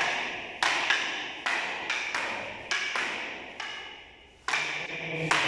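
Wooden sticks clacking together in a string of sharp, irregular strikes, each with a short ringing tail, with a brief pause before a louder hit near the end: arnis rattan sticks striking in a practice drill.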